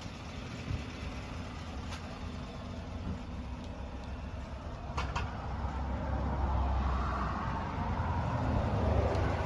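GMC Sierra pickup's engine running with a steady low rumble, growing louder over the last few seconds. A short sharp click about five seconds in.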